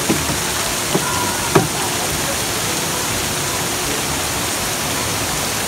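Fountain jets spraying and splashing into a pool, a steady rushing of falling water, with a few light ticks in the first two seconds.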